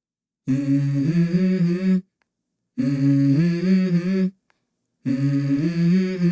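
Background music: a held vocal chord repeated three times, each phrase about a second and a half, separated by short silences.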